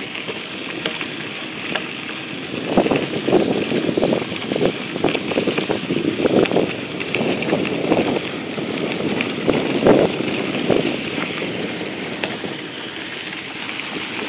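Wind buffeting the microphone of a moving bicycle, with irregular louder gusts through the middle, over the crunch of tyres on a dirt and gravel trail.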